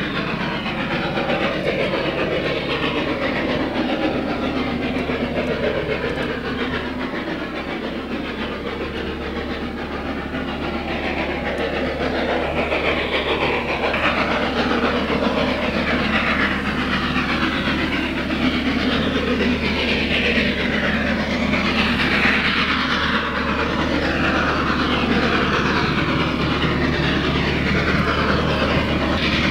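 2 ft 6 in narrow-gauge steam locomotive working hard up a gradient, its exhaust and running gear making a continuous loud noise that grows louder partway through as it draws nearer.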